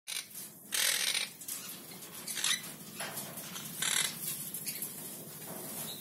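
Monk parakeet giving short, harsh calls, about four of them. The first, about a second in, is the longest and loudest.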